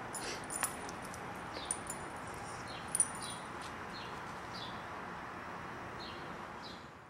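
An animal's short, high chirps, repeating about every half second over a steady background hiss, with a few light clicks near the start.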